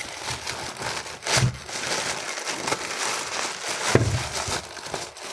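Polythene bag crinkling and rustling as it is pulled and worked off a ceiling fan motor, with louder crackles about a second and a half in and again about four seconds in.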